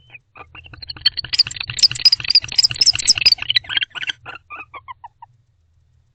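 Barn owls giving a rapid run of twittering, chittering calls, the affectionate calls of a bonded pair. The calls are dense for a few seconds, then thin into a few separate chirps and stop about five seconds in.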